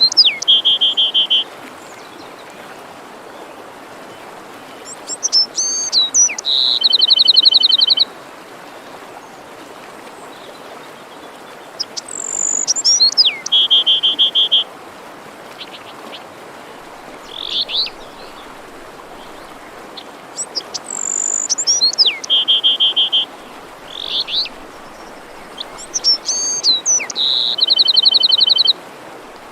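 A songbird singing one phrase over and over, about four times: a high whistle that slides downward, then a fast buzzy trill. Steady forest-stream rushing runs underneath.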